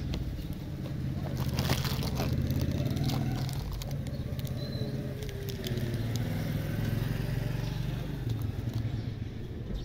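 Plastic candy wrappers and packaging crinkling and crackling in the hand, a cluster of crackles about two seconds in and scattered ones later. Under it, a steady low engine rumble runs throughout and is the loudest sound.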